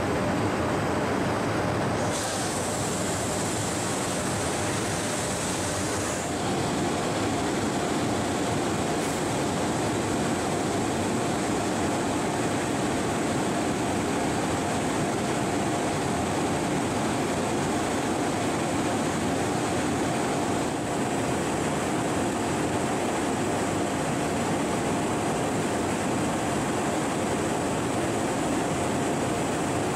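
Niigata HN-5X 5-axis horizontal machining center side-milling SKD11 tool steel with a 25 mm end mill under flood coolant: a steady, continuous mix of coolant spray and cutting noise. A steady whine joins it about six seconds in.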